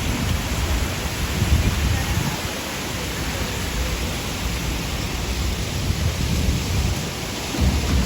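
City street ambience heard while walking: a steady wash of noise with a low rumble that swells and eases.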